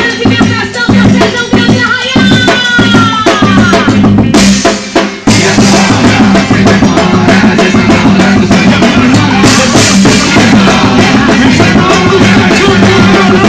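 Loud festa junina music with a drum kit beat played over a PA sound system for the quadrilha dance; sparse drum strokes open up into the full band about five seconds in.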